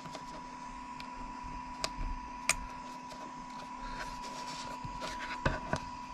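Small PLA 3D print being prised off its flexible build sheet and support: a few sharp plastic clicks and snaps, the last ones near the end as it comes free, over a steady hum with a faint high whine.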